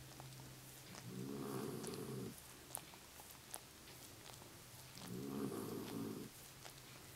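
A rough collie licking and mouthing her paw, with small wet clicks, and twice a low groan about a second long, about a second in and again about five seconds in, over a steady low hum.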